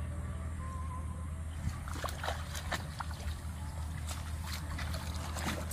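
Shallow paddy water splashing and sloshing in irregular bursts from about two seconds in, as a bamboo fish trap is lifted from it and someone wades through it, over a steady low hum.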